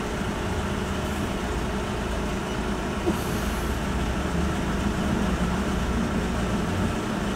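Steady low hum of a stationary car idling, heard from inside the cabin, with a single faint click about three seconds in.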